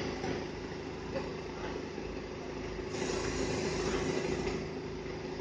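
Heavy diesel engine of a truck crane running steadily, growing louder and brighter for about a second and a half from about three seconds in.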